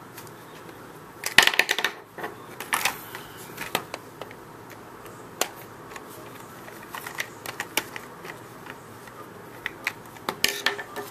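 Irregular clicks and clatter of a small Torx T8 screwdriver working at a stubborn screw in an Xbox 360 controller's plastic shell, with a burst of louder clattering about a second in and again near the end.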